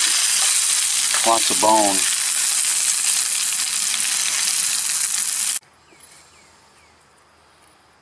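Bluegill sizzling steadily as it fries in oil in a camp frying pan. The sizzle cuts off suddenly about five and a half seconds in, leaving quiet with a few faint chirps.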